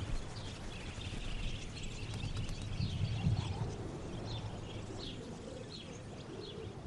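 Small birds chirping: many short, high chirps over a steady hiss, with a low rumble that swells and fades in the middle.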